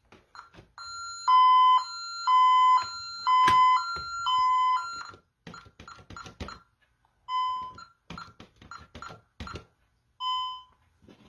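Honeywell Vista 15P alarm keypad sounding a medical panic alarm: a loud two-tone beeping, alternating high and low about twice a second, for about four seconds. It stops and is followed by a run of clicks and two short beeps.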